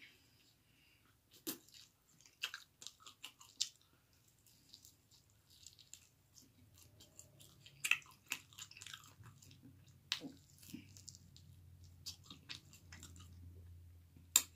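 A person chewing and eating a chicken wing close to the microphone: scattered smacks and crunches, the loudest about eight seconds in.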